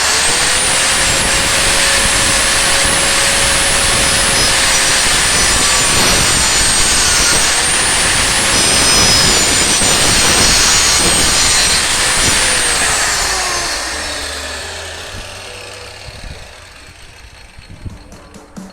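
Electric power saw cutting wood: the motor starts suddenly with a loud, high whine and dips in pitch a couple of times under load. About twelve seconds in it is switched off and winds down with a falling whine.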